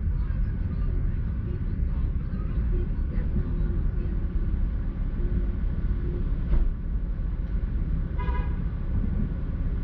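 Steady low rumble of a car idling, heard from inside the cabin, with a sharp click about six and a half seconds in and a short car-horn toot about eight seconds in.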